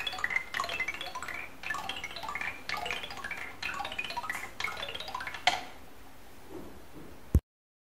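Bell-filled wooden balls of a Miura Kiji 'Sazanami' marble toy rolling down zigzag rows of wooden rods, tapping the rods in quick, uneven runs of soft xylophone-like notes. About five and a half seconds in a ball lands in the wooden base tray with a louder knock. The sound cuts off with a click near the end.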